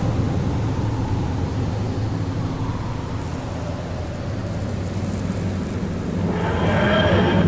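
A steady low rumble, then about six seconds in a wavering, rising-and-falling pitched tone begins: the TARDIS dematerialisation sound effect as the police box starts to vanish.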